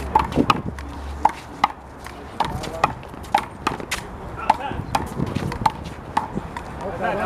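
Rubber handball (big blue ball) being slapped by hands and smacking off the wall and pavement in a one-wall handball rally: a quick series of sharp smacks, about two or three a second.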